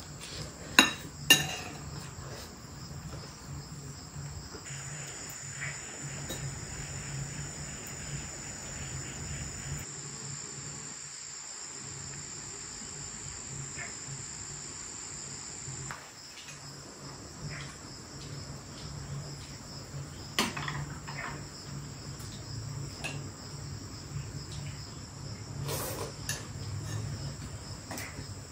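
Steady high-pitched insect chorus, crickets or cicadas, with two sharp knocks about a second in and scattered lighter clicks and knocks.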